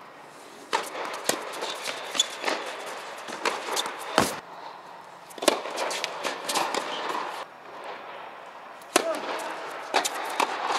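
Tennis balls struck by rackets and bouncing on an indoor hard court during a rally: a run of sharp pops at uneven spacing, one every second or so, the loudest about four seconds in, each echoing under the inflated tennis dome.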